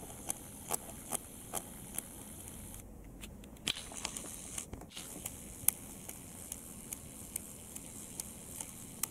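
Faint handling noise from a camera being held and adjusted: scattered small clicks and taps, one louder a little past halfway, over a steady high hiss.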